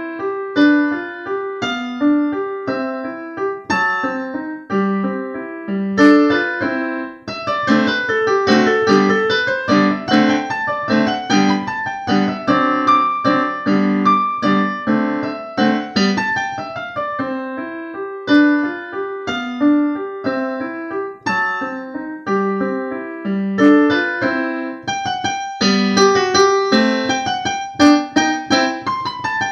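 Digital piano playing a classical solo piece with both hands: a steady stream of notes, with a run falling and rising again about eight to ten seconds in.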